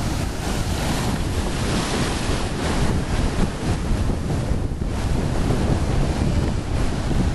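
Sea surf breaking and churning over a rocky shore, a steady loud wash of water, with wind buffeting the microphone.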